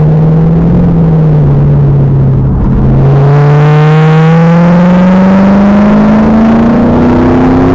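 Loud Pontiac Trans Am Firehawk LS1 V8 through its SLP exhaust, running at a roughly steady pitch, easing briefly about two and a half seconds in, then pulling under load with its pitch rising steadily to the end.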